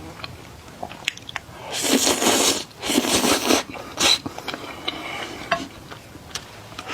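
Close-miked eating of tomato pasta and spicy sausage: two long noisy mouthfuls about two and three seconds in, a sharp short one near four seconds, then quieter chewing clicks.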